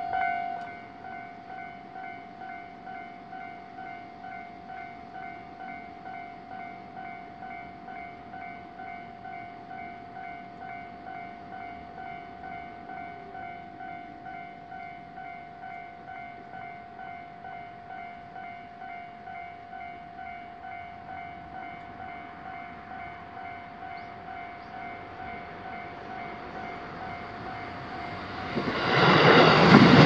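Japanese level crossing's electronic warning bell ringing in a steady pulse of about two strokes a second, turning quieter about half a second in. Near the end a train arrives and passes close by, and its loud rushing rumble becomes the loudest sound.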